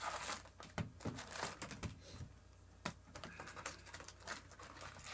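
Trading card packaging being opened and handled: crinkling and tearing of wrappers with a scatter of small clicks and taps.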